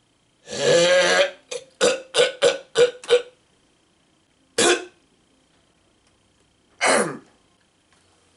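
A man clearing his throat and coughing: one long rasping clear, then a quick run of about six short hacks, then two single ones a couple of seconds apart.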